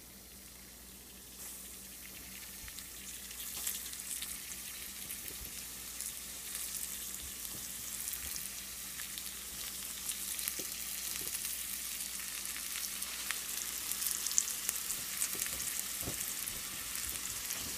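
Flour-dredged bluegill pieces frying in hot oil in a frying pan: a crackling sizzle that grows louder as more pieces go in, with scattered sharp pops.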